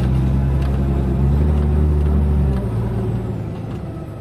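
Heavy-haul truck's diesel engine running under load with a steady low drone. About two and a half seconds in the note drops and quietens, as if the throttle eases off.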